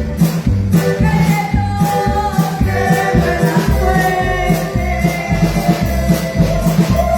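Keyboard-led cumbia music: synthesizer melody and held chords over a steady bass and drum beat, with a shaker-like percussion pattern ticking along on top.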